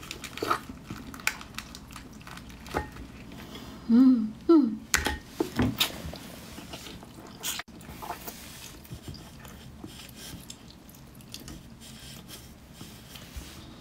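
A person chewing and biting into lobster meat: wet mouth sounds with scattered sharp clicks, and a few louder cracks about five to six seconds in.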